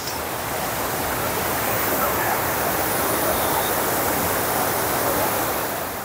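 Fast-flowing, muddy creek in rainy-season flood rushing over rocks: a steady, even rush of water.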